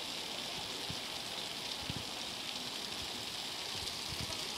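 Heavy rain pouring down in a steady hiss, with muddy floodwater rushing along the street, and a few faint dull thuds.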